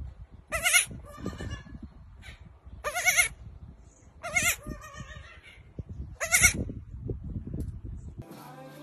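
A baby goat bleating: four high, quavering bleats about one and a half to two seconds apart, with fainter bleats between them.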